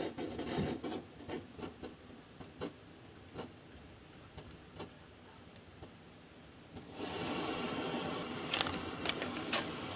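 A metal cook pot and camp stove being handled, with a run of small clinks and knocks. About seven seconds in, a backpacking gas canister stove lights and burns with a steady hiss under the pot. A few sharp clicks come soon after.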